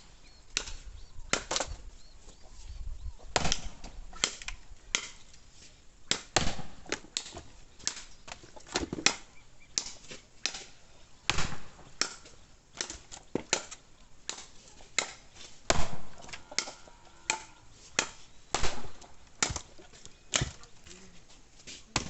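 Firewood being split by hand: a long run of sharp chopping strikes of a blade into wood, irregularly spaced about one every half second to a second, some cracking louder than others.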